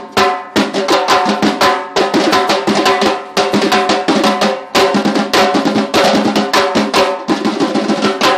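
Samba school drum section (bateria) playing a fast, dense samba groove, with repiniques and snare drums struck together at full volume.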